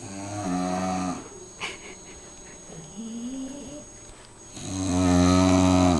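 Bulldog snoring loudly in her sleep: three snores, the first and last long and strong, and the one near the end the loudest, with a softer snore between them.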